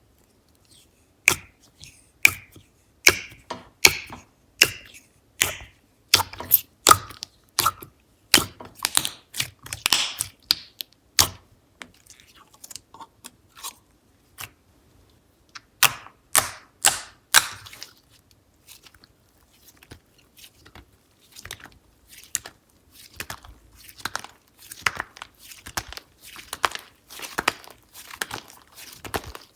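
Slime being squeezed and stretched by hand, making sharp sticky pops and clicks about one or two a second for the first ten seconds or so. A quick cluster of pops comes a little past halfway, and softer, denser crackling builds toward the end.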